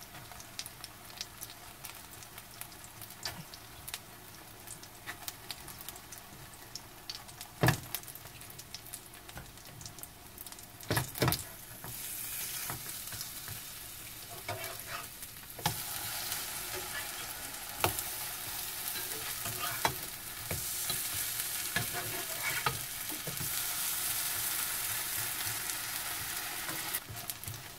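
Lotus-root pancakes frying in oil in a nonstick pan: a soft sizzle that turns louder and steadier about twelve seconds in, as the pancakes are turned over onto their uncooked side. A metal spatula knocks against the pan now and then.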